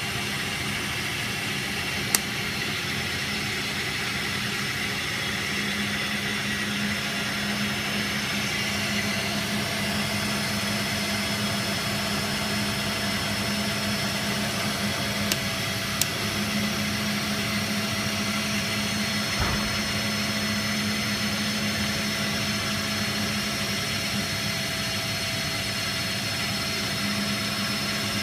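Hardinge HLV-H toolroom lathe with its spindle running: a steady mechanical hum with a faint whine, broken by a few short sharp clicks, about two seconds in and again around the middle.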